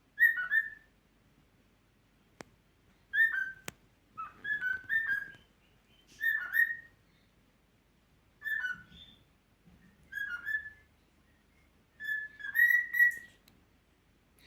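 Cockatiel whistling a series of short melodic phrases with pauses of a second or two between them.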